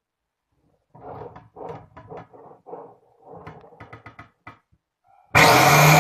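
Irregular knocks and rattles of handling, then near the end the benchtop metal cutter's motor, built from a handheld tile cutter, switches on abruptly and runs at steady speed with a high whine.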